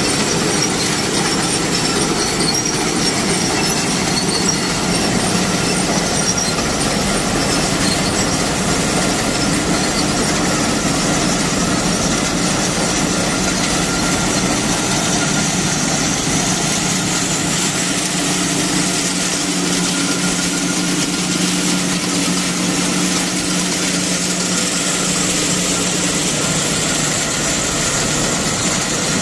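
Legume harvesting machine running steadily: a constant mechanical clatter over a low engine drone, with a faint high-pitched whine.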